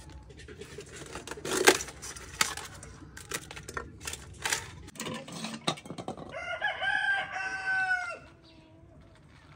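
Thin dry flatbread crackling and snapping as it is broken up by hand, with one loud snap about two seconds in. About six seconds in, a rooster crows once, a call of about two seconds that drops in pitch at the end.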